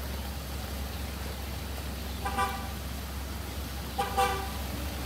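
Two short car horn honks about two seconds apart, over the steady hiss of rain on a wet street.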